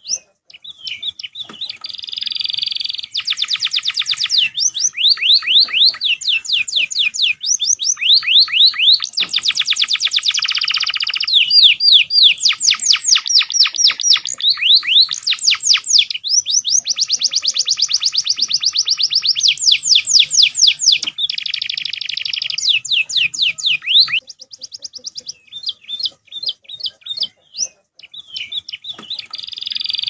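Domestic canary singing long runs of very fast trills and rapid rising sweeps, broken by buzzy rolls. About 24 seconds in, the song thins to scattered short notes, then resumes in full near the end.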